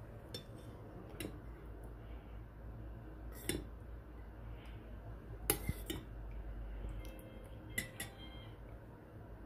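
A few light clinks and knocks of utensils against dishes, scattered a second or two apart, over a faint low hum.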